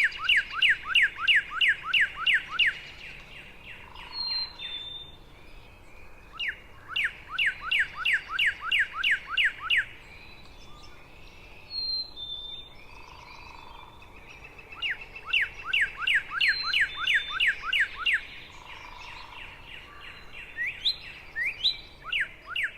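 Northern cardinal singing three phrases of fast, repeated downward-slurred whistles, with a black-capped chickadee's fainter two-note 'fee-bee' whistles between the phrases.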